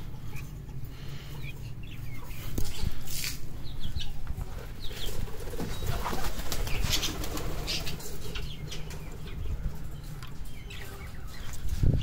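Pigeons flapping their wings in short, irregular bursts.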